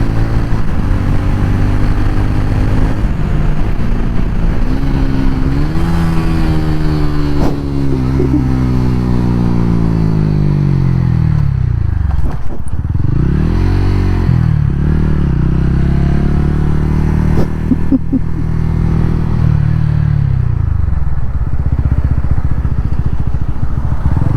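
TVS Ronin 225's single-cylinder engine and exhaust under way, its pitch rising as it pulls and falling away as the throttle closes or a gear is changed, with a deep dip about halfway through before it picks up again.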